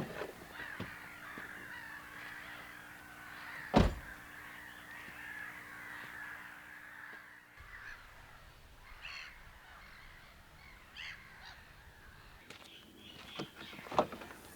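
Birds calling, with a sharp knock about four seconds in and another near the end.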